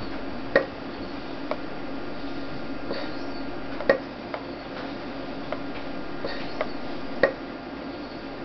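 Stylus tapping on a touchscreen panel: a string of sharp taps, the three loudest about half a second in, near four seconds and near seven seconds, over a steady electrical hum.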